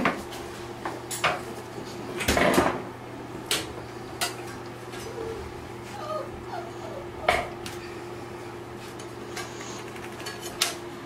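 Puppies scuffling and playing on towels and bath mats, with scattered clicks and knocks and a few faint puppy whimpers a little past the middle, over a steady low hum.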